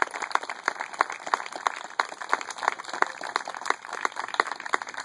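Small audience applauding, with individual hand claps distinct and irregular.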